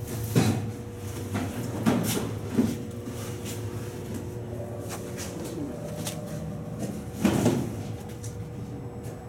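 A steady hum runs throughout, with a few hollow clunks and knocks; the loudest clunk comes about seven seconds in.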